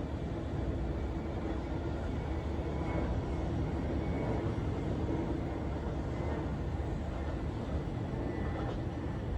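Train passing on the tracks: a steady low rumble.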